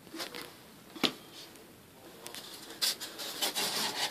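Trowel scraping and spreading thinset mortar, with a sharp knock about a second in and steadier, louder scraping in the second half.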